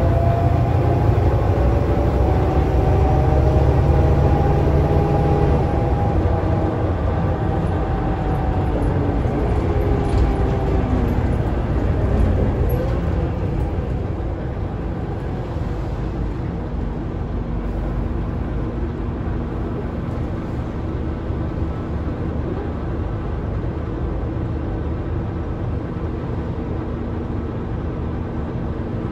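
Scania K320UA articulated bus heard from inside the passenger cabin while it drives: its diesel engine and road noise. The engine note is louder and bends up and down in pitch for the first dozen seconds, then settles into a quieter, steady drone with a faint steady hum.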